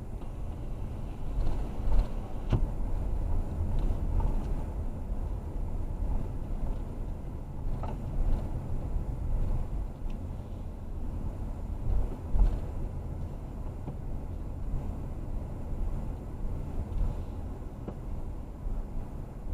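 Steady low rumble of a car heard from inside, with a few scattered clicks and knocks.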